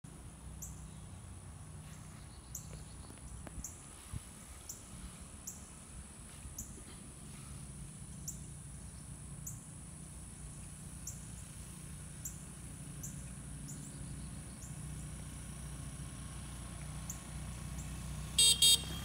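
Small motor scooter running at low speed as it comes closer, its low engine hum slowly growing louder, then two short, loud beeps of its horn near the end. Behind it, a steady high insect drone and regular high chirps about once a second.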